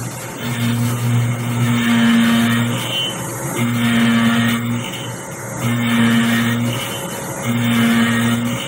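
Small DIY CNC mill cutting a pocket in an aluminium block with an end mill: a steady hiss of spindle and cutting, with a low hum that comes and goes about every second or two as the tool works along its passes.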